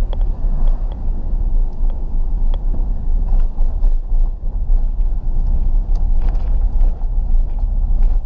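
Car cabin road noise: a steady low rumble of engine and tyres as the car drives along.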